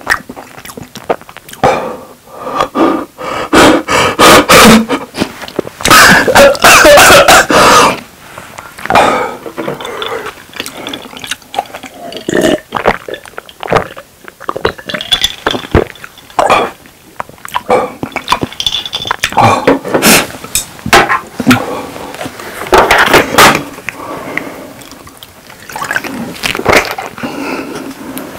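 Close-miked eating sounds: chewing steak with wet mouth clicks and smacks, irregular and loudest in a few bursts early on, and gulps of a drink from a glass mug around the middle.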